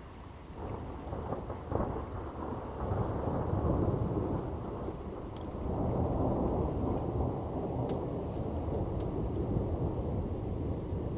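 Thunder rolling in a rainstorm. A low rumble builds about half a second in, with a sharper crack near two seconds, then swells again and keeps rolling through the rest, over falling rain.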